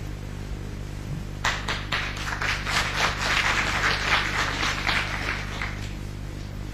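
Studio audience applauding. The applause starts about a second and a half in, swells, and dies away near the end.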